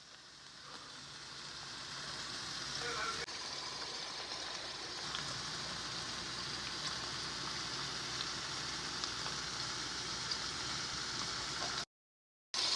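Deer steaks sizzling in oil in a frying pan: a steady frying hiss that builds over the first few seconds and cuts off abruptly near the end.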